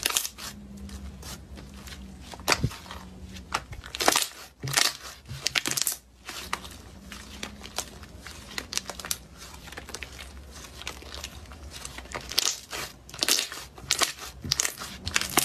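Slime being squished and worked, making irregular crackling and popping clicks that come in clusters, densest about four to six seconds in and again near the end.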